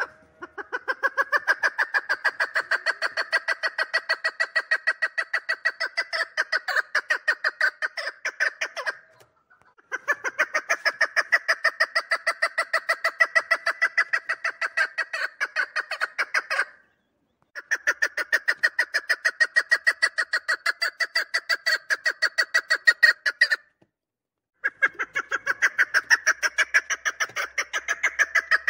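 Female chukar partridge calling: long runs of rapid, evenly repeated notes, each run lasting seven or eight seconds, broken by short pauses three times.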